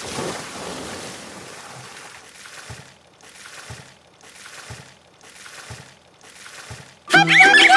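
A water-splash sound effect that fades out, followed by water sloshing in soft surges about once a second, each with a low thud. Loud music comes in near the end.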